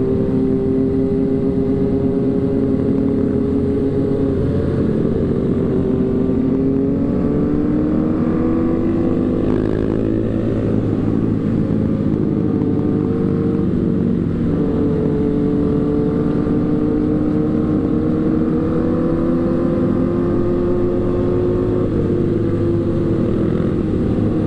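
Motorcycle engine running at riding speed, its pitch slowly climbing and dipping with the throttle, over steady road and wind noise.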